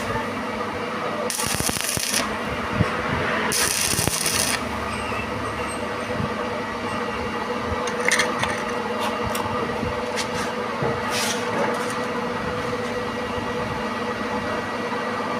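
A machine runs with a steady hum. Two bursts of loud hissing come in the first few seconds, then scattered sharp clicks and taps.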